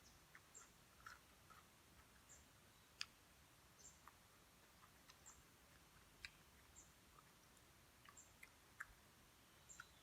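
Near silence with faint scattered clicks and chewing sounds of someone eating, and a small high chirp repeating about every second and a half.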